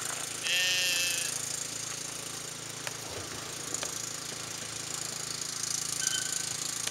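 Footsteps crunching on gravel as a person and a dog walk. A sheep bleats once, briefly, about half a second in.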